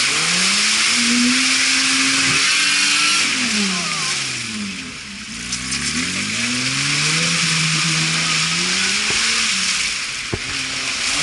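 Off-road 4x4 engine revving hard, its pitch rising, falling and rising again as the throttle is worked, with a second engine note crossing it midway. A steady hiss runs over it, and there is a single sharp knock near the end.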